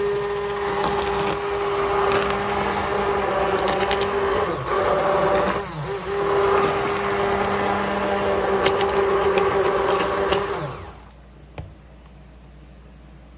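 Handheld stick (immersion) blender running steadily with a motor whine, blending hot oils and water into a lotion-cream emulsion in a stainless steel pot. The motor briefly slows and recovers around the middle, then winds down and stops about eleven seconds in, followed by a faint click.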